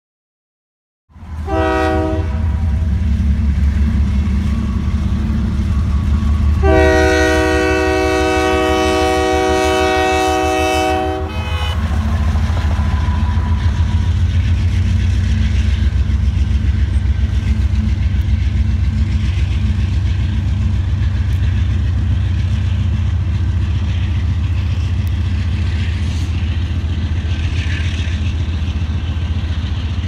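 Union Pacific diesel locomotives' air horn gives a short blast about a second in, then a long blast of about five seconds. Underneath runs the steady low rumble of the engines and the loaded coal train rolling past.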